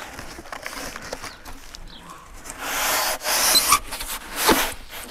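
Plastic packaging film crinkling and tearing while a 50 mm extruded polystyrene (XPS) foam insulation board is dragged out of its pack, the foam rubbing against the film and the neighbouring boards. The rustling swells about two and a half seconds in, with a sharp scrape near the end.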